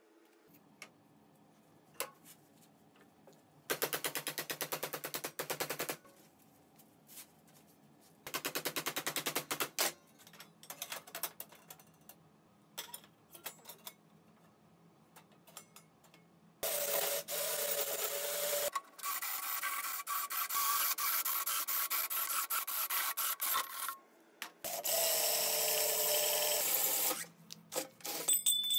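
Cordless drill with a bimetal hole saw cutting a 100 mm hole through stainless steel sheet, in three bouts of motor whine and metal grinding in the second half. Earlier come two shorter bursts of buzzing power-tool noise, about two seconds each.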